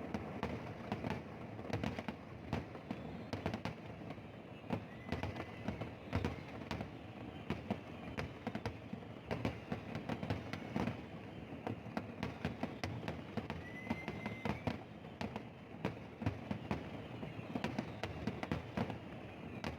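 Fireworks display: a continuous run of bangs and crackling pops, with a few short high whistles.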